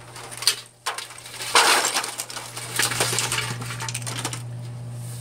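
Boiled clams, crabs, corn and potatoes tipped from an aluminium strainer basket into a foil pan: a loud rush of food and shells about one and a half seconds in, then scattered clinks of clam shells settling for a few seconds.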